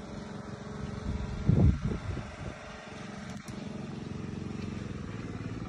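An engine idling steadily, with a loud low thump about a second and a half in.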